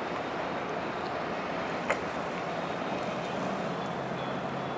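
Boat engines running steadily as vessels move slowly through the harbor, a continuous drone with a low hum. One sharp click about two seconds in.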